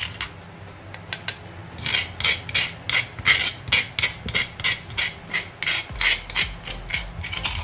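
Metal spoon scraping pounded dry chilli out of a stone mortar, in short repeated strokes about three a second after a quieter first second and a half.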